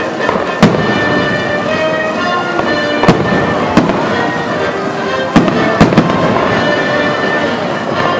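Fireworks going off: about six sharp bangs scattered through, three of them close together past the middle, over music playing throughout.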